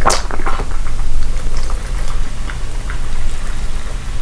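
Close-miked mukbang eating sounds: wet clicks and smacks of chewing, dense at first and then thinning out, over a low hum.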